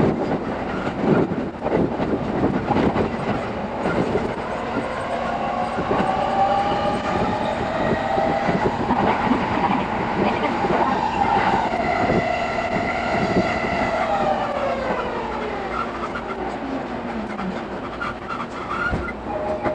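Running sound of an E217-series electric train heard from inside a passenger car, sped up six times: rapid clatter of wheels over rail joints under a whine of several tones. The whine climbs slowly, then slides down in pitch from about two-thirds of the way in as the train slows.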